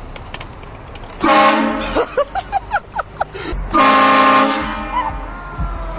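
Train horn blown in two long, loud blasts, one about a second in and one near the middle. Between them comes a quick run of short yelps.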